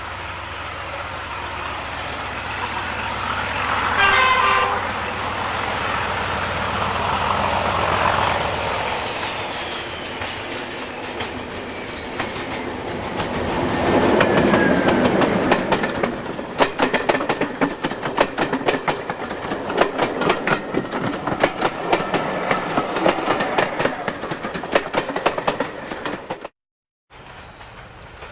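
Class 31 diesel-electric locomotive sounding its horn in a short blast about four seconds in, then its engine growing louder as it approaches and passes close by hauling coaches. The coach wheels then give a rapid clickety-clack over the rail joints. The sound cuts off abruptly about a second and a half before the end, leaving a quieter train sound.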